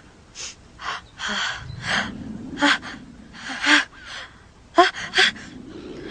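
A person in a sneezing fit: a run of sharp, gasping in-breaths and short sneezes. The two loudest, sharpest sneezes come about five seconds in.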